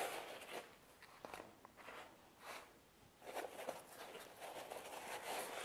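Faint, irregular rustling and crackling of crisp fried pizza-dough rounds (pizzelle) being picked out of a paper-lined basket and set down on a wooden board.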